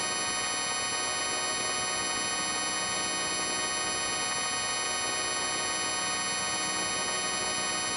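A dense, unchanging electronic chord: many steady tones stacked from low to very high pitch, the layered pitch-shifted copies of a "chorded" sound-effect edit, held without a break.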